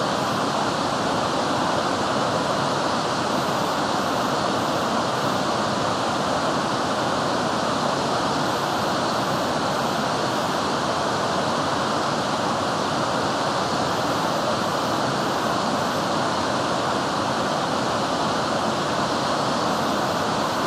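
Steady rush of Fukuroda Falls, a large multi-tiered waterfall, its falling water an even, unbroken roar.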